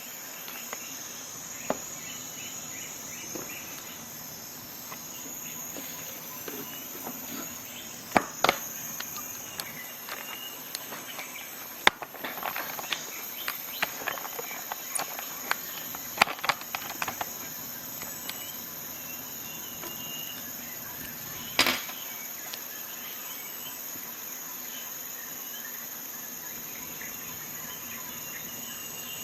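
Steady high chirring of insects, with scattered sharp clicks of the Swiss Army knife's tools snapping open and shut: a pair about eight seconds in, a busy run in the middle, and a single loud one past twenty seconds.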